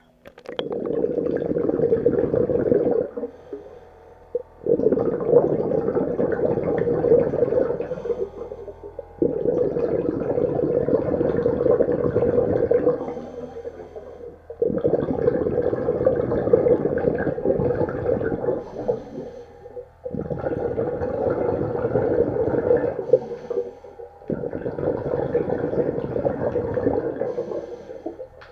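Underwater, a diver's exhaled breath bubbles out of a scuba regulator fed by a homemade 12-volt air-pump supply. There are six long bursts of bubbles about every four to five seconds, with short quieter pauses between breaths.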